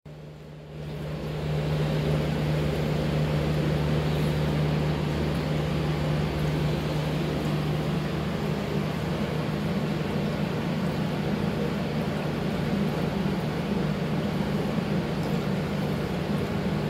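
Eheim 350 canister filter running on the tub: a steady low motor hum under a constant wash of moving water, swelling up over the first second or two, then holding level.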